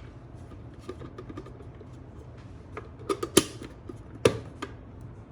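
Handling noises from a capsule coffee machine: light plastic clicks and taps, with a few sharper clicks or knocks about three and four and a half seconds in, over a low steady hum.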